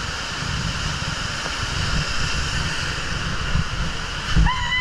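Steady rush of water and wind buffeting the microphone, as on a water-park raft slide. A steady high tone comes in near the end.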